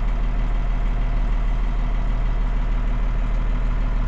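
Tractor engine running steadily at idle, a constant deep hum, heard from inside the cab.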